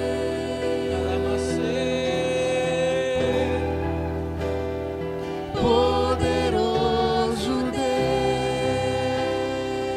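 Slow gospel worship music: long held chords over a slowly changing bass, with a singing voice.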